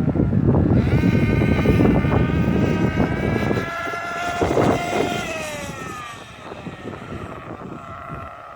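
Losi 8IGHT-T RC truggy running at speed: a high buzzing motor note that holds, then drops in pitch and fades about five to six seconds in. Heavy wind buffets the microphone over the first few seconds.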